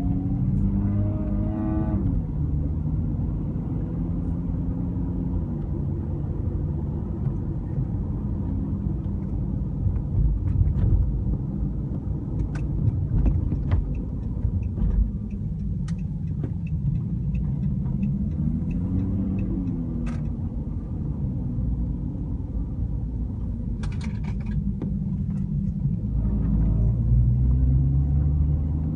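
Cabin noise of a 2013 Chrysler 300 on the move: steady road rumble with the engine note rising and falling, and scattered short clicks and knocks.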